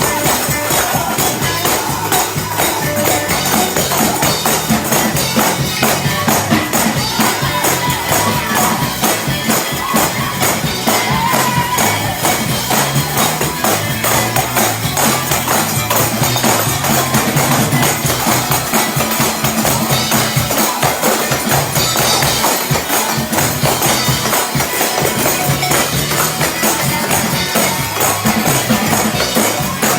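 Many tambourines shaken and struck fast and hard in a Pentecostal praise break, a dense steady jingling clatter over a driving beat. Voices and other instruments sound faintly underneath.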